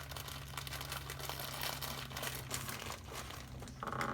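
Plastic bags crinkling and rustling as they are handled, with a steady low hum underneath.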